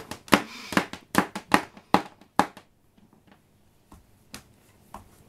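A baby slapping and tapping at a wooden floor: a quick run of about a dozen sharp slaps in the first two and a half seconds, then a few scattered taps.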